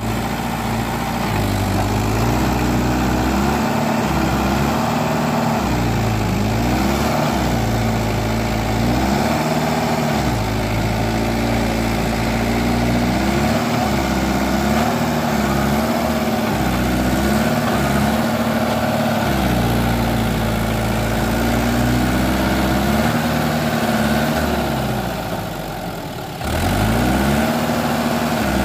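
Mahindra tractor's diesel engine revving up and down over and over, straining with a loaded trailer while its rear wheels are sunk in mud. Near the end the revs sag and the engine nearly bogs down, then picks up again.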